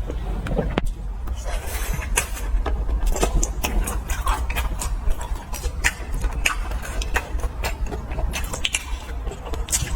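Close-up crunching and chewing of fried skewered food, a stream of short crisp crackles and bites, over a steady low hum.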